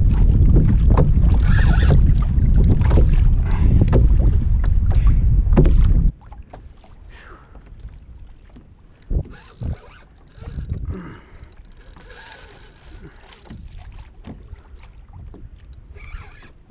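Heavy wind buffeting a camera microphone for about six seconds, cutting off suddenly. After that come quieter water sounds against a kayak hull with scattered knocks, as a hooked fish tows the kayak.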